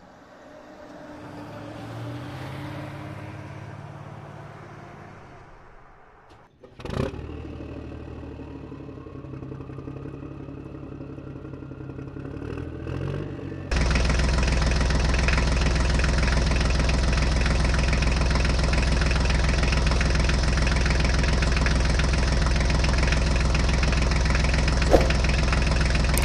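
Tractor engine sound effect. A running engine swells and fades, a sharp click comes about seven seconds in, then a softer engine hum follows. From about fourteen seconds a loud, steady engine note runs without change.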